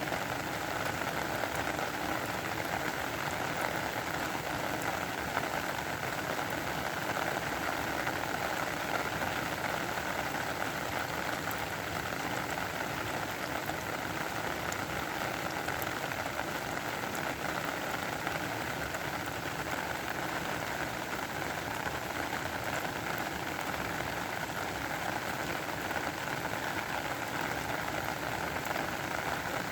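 Steady rain falling and pattering on a surface, with the fine ticks of individual drops.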